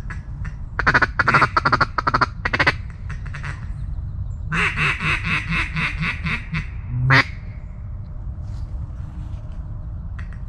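Mallard duck call blown close by, working ducks: a few quick bursts of rapid chattering notes, then a long run of quacks at about five a second that ends on one sharp note.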